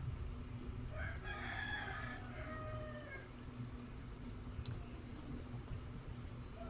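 A rooster crowing once: a single drawn-out call of about two seconds, starting about a second in and trailing off on a falling note, over a steady low hum.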